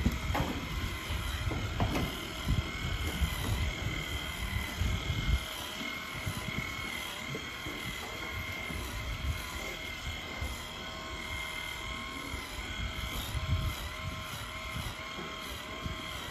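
Steady mechanical drone of machinery running in a dairy barn: several level whining tones that waver slightly in a slow regular beat. Low rumbling noise sits under it for the first five or so seconds and then falls away.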